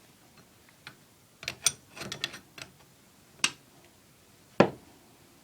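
Scattered clicks and light knocks of plumbing parts being handled, a few in quick succession, ending with one sharp knock about four and a half seconds in.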